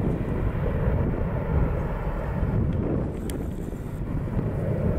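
The twin CFM56-7B turbofan engines of a Boeing 737-800 at climb power as the jet departs, heard from the ground as a steady low rumble mixed with wind buffeting the microphone. A short sharp tick comes a little past three seconds in.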